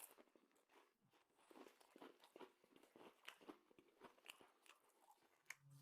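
Faint close-up chewing of food, a scatter of small wet mouth clicks and soft crunches.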